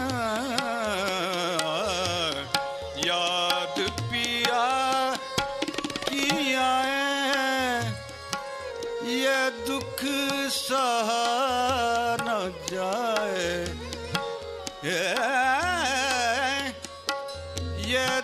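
Hindustani thumri performance: a singer's wordless, ornamented vocal runs glide and waver up and down over a steady held drone note, with tabla strokes underneath.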